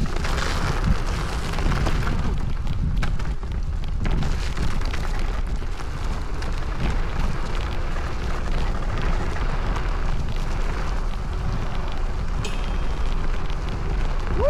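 Electric scooter ridden fast over rough off-road ground: heavy wind buffeting on the camera microphone over a steady low rumble, with constant crackling and rattling from the tyres and frame.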